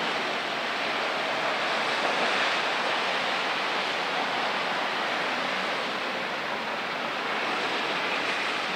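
Thunderstorm rain falling steadily, an even, unbroken hiss.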